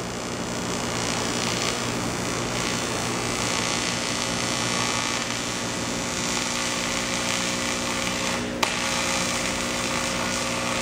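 A power tool running steadily with a constant whine, with one short click about eight and a half seconds in.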